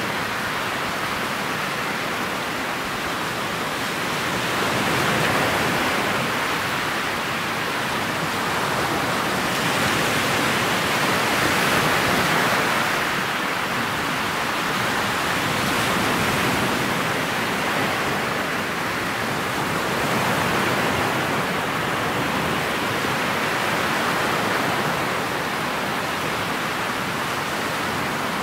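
Steady rushing of water and wind past a motorboat's bow under way on choppy water, swelling and easing every few seconds.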